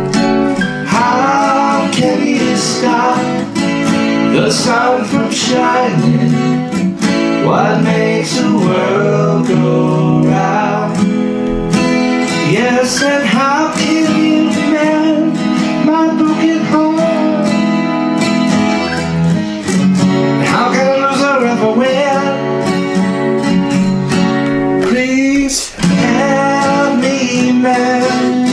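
Acoustic guitar strummed steadily while a man sings along, his voice run through a vocal harmony processor.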